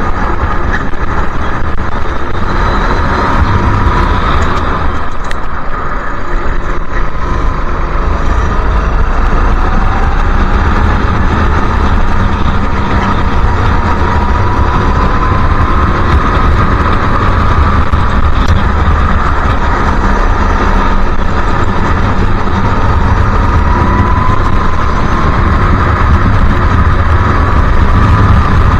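Racing go-kart engine running hard on track, its pitch rising on the straights and dropping back for the corners, again and again, heard from the kart's onboard camera.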